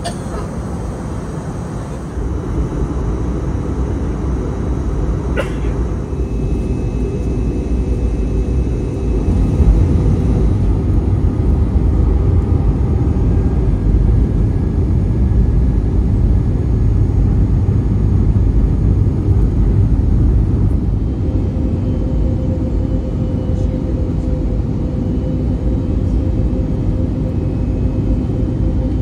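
Cabin noise aboard an Airbus A320neo airliner in flight: a steady deep rumble of engines and airflow with a faint steady hum, growing louder about ten seconds in. A single sharp click about five seconds in.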